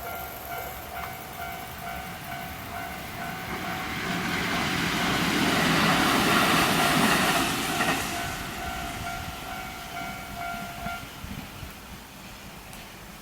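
Electronic level-crossing bell ringing in a steady repeating tone while a Kintetsu train passes. The train's noise builds to a peak about six seconds in and then fades. The bell stops about eleven seconds in.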